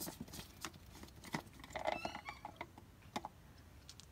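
Light clicks and knocks of a plastic cartridge oil filter housing cap being unscrewed and lifted out of the engine, with a brief pitched call about two seconds in.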